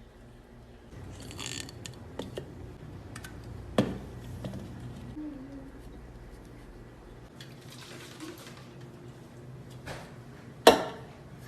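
Quiet room noise with a few scattered clicks and knocks, a sharper knock about four seconds in and the loudest one near the end.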